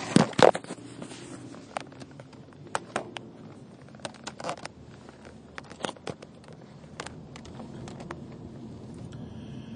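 Outdoor background noise with a steady low rumble and irregular sharp clicks and rustles. The loudest clicks come together right at the start.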